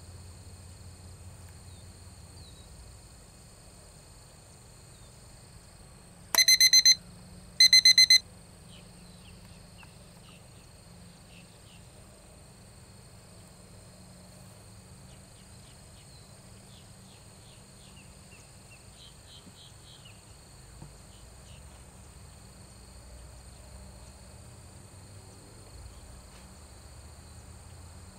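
Two loud electronic beeps about a second apart, each a pure high tone lasting about half a second, over a steady drone of insects. The beeps serve as an interval signal marking a sampling point in a timed behaviour-scoring video.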